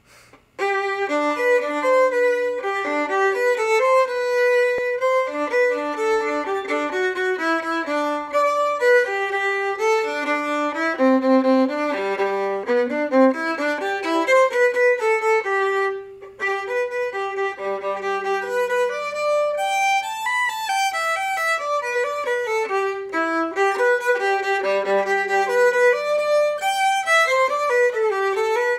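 Solo violin playing a bowed melody, starting about a second in. Three times a low note is held beneath the melody, and the playing breaks off briefly about halfway through.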